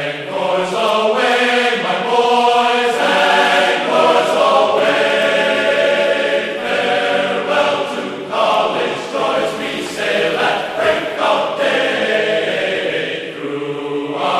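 Background music with several singing voices, like a choir.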